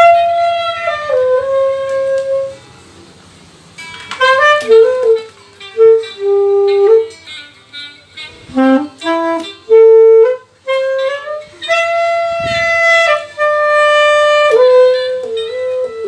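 Saxophone playing a melody of held notes that step up and down, breaking off for about a second near the start before carrying on.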